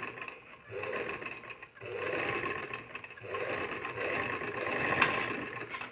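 Domestic straight-stitch sewing machine stitching through cloth in four short runs with brief pauses between them. It is sewing a faulty stitch that puckers and damages the upper layer of fabric, a fault later traced to the needle and shuttle.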